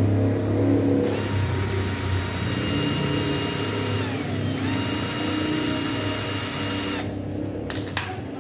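Electric drill or screwdriver running for about six seconds with a steady whine. Midway its pitch sags and it comes back up to speed. A few sharp clicks follow after it stops.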